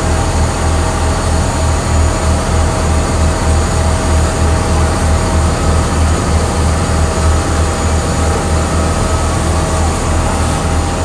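Passenger river ferry's engine running steadily, heard from on board: a loud, low drone with a fast pulse and a hiss of noise above it.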